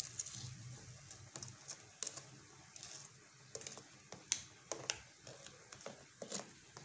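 Metal spoon turning fried almond briouats over in a bowl of honey, giving irregular light clicks and taps against the bowl and the pastries.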